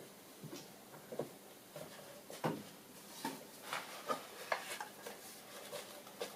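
Scattered light knocks, clicks and rubbing of plywood pieces being handled and set down on a workbench, irregular, with a slightly louder knock about two and a half seconds in.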